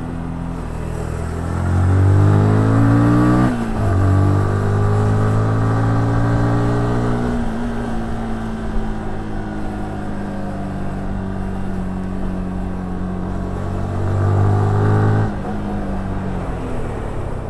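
Yamaha R15S single-cylinder engine pulling under throttle: the pitch climbs, drops sharply about three and a half seconds in at an upshift, climbs again, then settles into a steady cruise. Near the end it pulls louder briefly before the pitch falls away suddenly.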